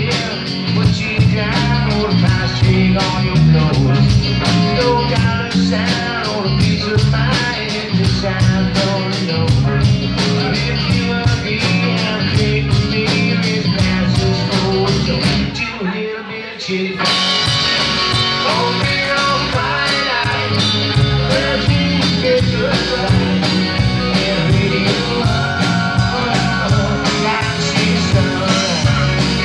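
Live band playing a country-rock song on electric bass, drum kit, acoustic guitar and electric guitar, with a steady drum beat. The drums drop out for about a second halfway through, then the band comes back in.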